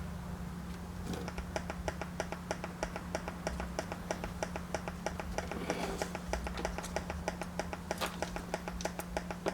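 Pulsating sound from a faulty Yamaha mixer board's audio output heard through headphones: a fast, even train of clicks, about five a second, starting about a second in over a steady low hum. The pulsing is the board's fault.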